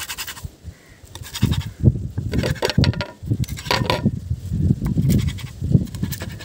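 A series of short animal calls, loudest in the second half, over the light scrapes and taps of a wooden spatula cutting an egg on a non-stick pan.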